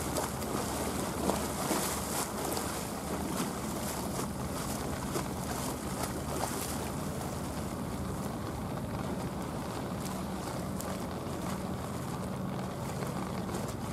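Boat wake water washing against concrete steps at the water's edge, with wind buffeting the microphone in the first half. A high-speed passenger boat's engine hums steadily underneath, growing clearer in the second half as the boat approaches.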